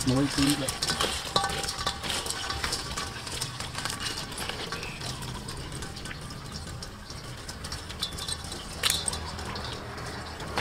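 Small crabs being pulled apart by hand over a stainless steel bowl: shells cracking and clicking, and pieces tapping and rattling against the metal, with one sharper click near the end.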